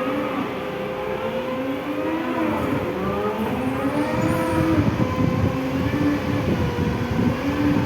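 Combilift forklift running on a trial after repair, its engine speed rising and falling over and over beneath a steady whine. The running grows louder and rougher about halfway through.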